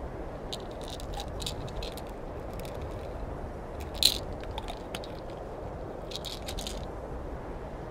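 An orange being peeled by hand: short crackling tears and scrapes of the peel coming away, scattered through, the loudest about four seconds in, over a steady background hiss.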